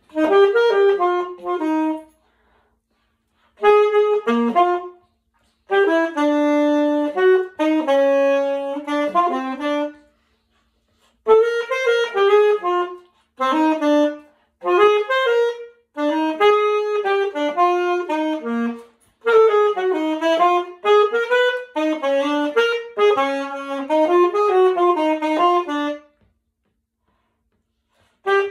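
Solo alto saxophone, unaccompanied, playing a jazz melody in phrases broken by short silent pauses, then falling silent about two seconds before the end.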